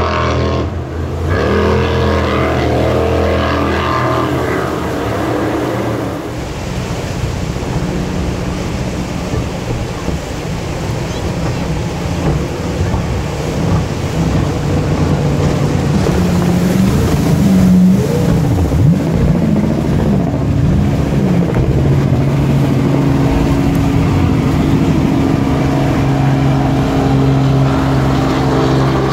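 Racing jet boats' engines running hard through river rapids, one boat after another, over the steady rush of whitewater. About two-thirds through, the engine note swoops up and down several times, and near the end another engine's steady note builds.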